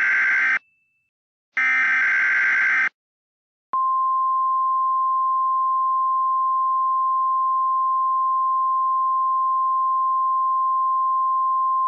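Emergency Alert System signal. First come two harsh, buzzing digital data bursts of the alert header, each about a second long with a short gap between. After a pause of about a second, a single steady alert tone just above 1 kHz starts nearly four seconds in and holds at one pitch.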